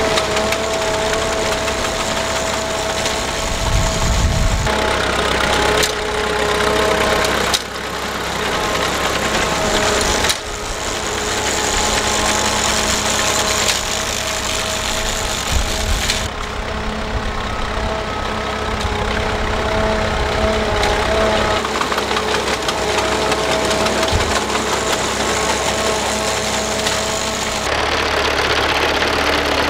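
Vintage Fordson tractor engines running steadily under load, pulling a binder and then a reaper through standing oats, mixed with the steady clatter of the machines' cutting and binding mechanisms. The sound changes abruptly several times.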